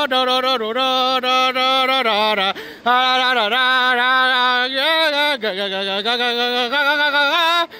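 A single voice singing a wordless chant in long drawn-out held notes, with small dips in pitch and a short break about two and a half seconds in.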